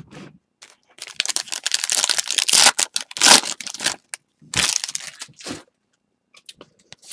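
Silver foil wrapper of a 2020 Bowman baseball card pack being torn open and crinkled by hand: a dense crackling for about three seconds starting a second in, then a second shorter burst of crinkling, followed by a few faint ticks.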